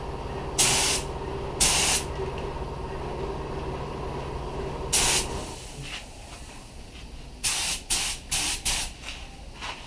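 Gravity-feed spray gun hissing in short trigger bursts, spraying 2K reducer to melt the new clear coat's edge into the old: two bursts about a second apart near the start, one about five seconds in, then four quick bursts in a row near the end. A steady background hum drops away about five and a half seconds in.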